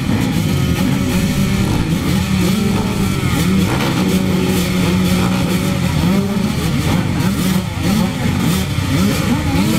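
A row of motocross bikes, two-strokes among them, idling and revving together at the start gate, their overlapping engine notes rising and falling as riders blip their throttles.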